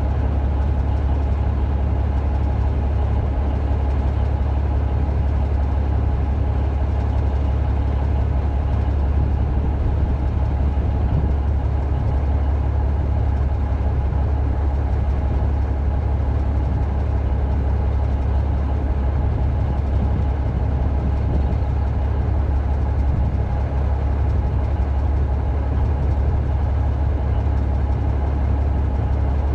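Engine of a lattice-boom cable logging yarder running steadily at idle, a deep, even hum that does not rise or fall.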